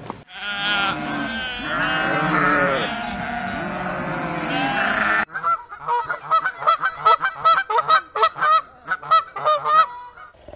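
For about five seconds, several farm animals bleat in overlapping, wavering calls. After a sudden cut, a large flock of barnacle geese calls with short, rapid yapping honks, several a second, until near the end.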